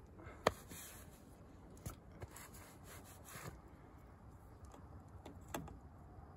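Hand rubbing mud off the end of a buried PVC pipe, with a few sharp clicks from handling the pipe; the loudest click comes about half a second in.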